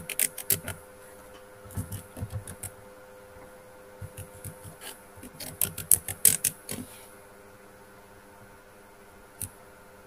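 Typing on a computer keyboard: quick runs of key clicks in several bursts, with a single click near the end, over a faint steady hum.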